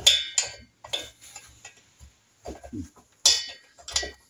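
Sharp metallic clinks and rattles of a steel rocker arm being wiggled and knocked about inside a Norton Commando's alloy cylinder head as it is worked loose. Two louder ringing clinks stand out, one right at the start and one about three seconds in, with lighter knocks between.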